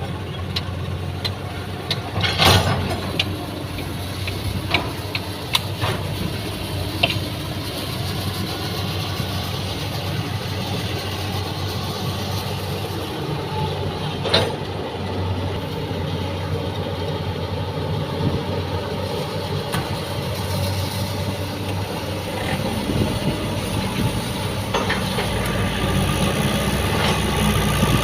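Heavy diesel machinery engine running steadily, with a few sharp knocks: the loudest about two and a half seconds in and another about halfway through. The engine grows a little louder near the end.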